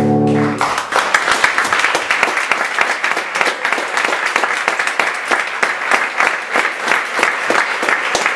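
A held musical chord ends about half a second in, giving way to an audience applauding steadily.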